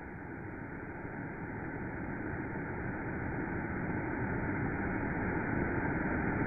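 Waterfall and creek water rushing in a steady, even roar that grows gradually louder.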